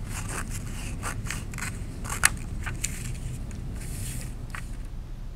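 Scissors snipping through folded construction paper, a quick run of cuts over the first three seconds with one sharper snip a little past two seconds, then a soft rustle of the paper.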